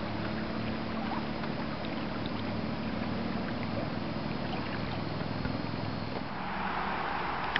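Small wind-driven waves lapping and splashing against a kayak's hull, with steady wind, a steady rushing noise and faint droplet ticks. About six seconds in, the water rush grows louder.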